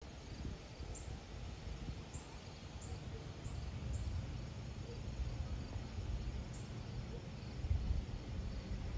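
Low, steady rumble of a Boeing 747-400's four engines on approach, passing high overhead. Short high chirps repeat about every half second for a few seconds early in the sound, with one more later.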